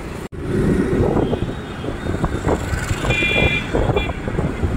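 Wind rushing over the microphone, mixed with road and engine noise, while riding along a traffic road in an open vehicle. A short high-pitched beep, like a vehicle horn, sounds a little after three seconds in.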